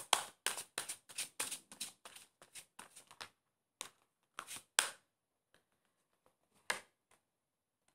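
A deck of cards being shuffled by hand: quick soft card strokes, about four a second for the first three seconds, then a few scattered strokes that die away.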